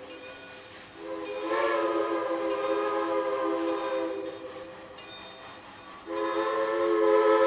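Southern Railway 2-8-0 steam locomotive's whistle blowing a chord of several notes: one long blast starting about a second in and lasting some three seconds, then another starting near the end.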